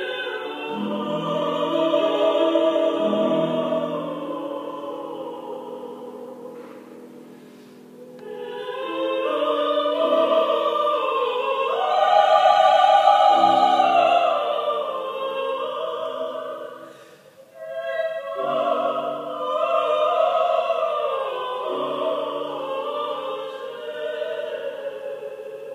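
Two female operatic voices singing a bel canto duet in Italian with piano accompaniment, with wide vibrato; the singing eases off briefly about seven seconds in and breaks off for a moment near the 17-second mark before resuming.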